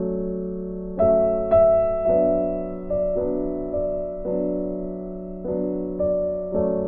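Background music: a soft piano or electric-piano melody, its notes struck about every half second to a second and left to ring, with louder notes about a second in.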